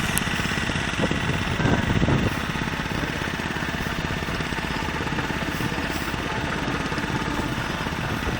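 Boat engine running steadily with a fast, even pulsing chug, a little louder for the first couple of seconds.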